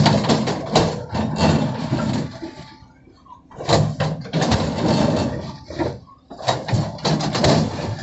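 Tracked excavator digging a trench: the diesel engine working under hydraulic load while the bucket scrapes and scoops soil and stones, in three loud stretches with quieter dips about three and six seconds in.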